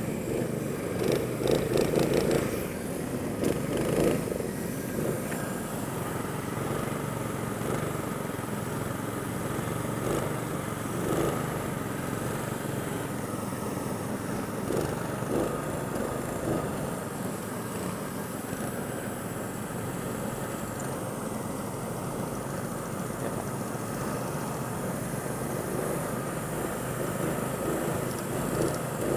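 Go-kart engines running as karts drive around the track, a steady engine noise with a few louder surges in the first few seconds.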